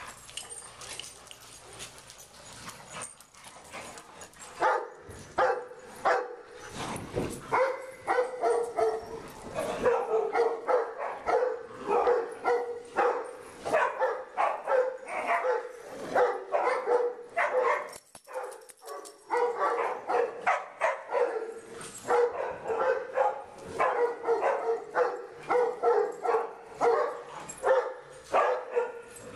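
A dog barking over and over, about two to three barks a second, starting about four seconds in, with a short pause a little past the middle.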